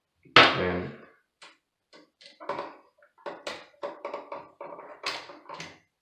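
Irregular clicks, taps and knocks of hands handling a plastic GFCI receptacle, its wires and a screwdriver during wiring.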